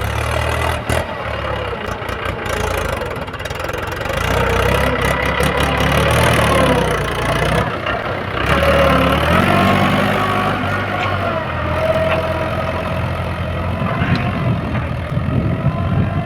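Diesel engines of a JCB 3DX backhoe loader and a Mahindra Novo 755 DI tractor running during mud loading, with a whine that rises and falls in pitch through the middle.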